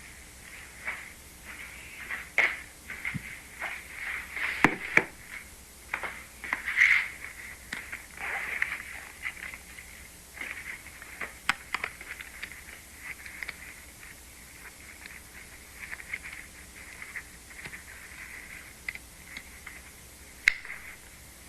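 Crackling static: a hiss with irregular pops and clicks, busier in the first half and with one sharp pop near the end.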